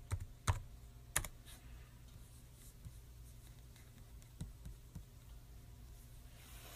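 Keys typed on a computer keyboard: a few sharp clicks in the first second or so as a search is typed and entered, then a couple of fainter clicks later, over a faint low hum.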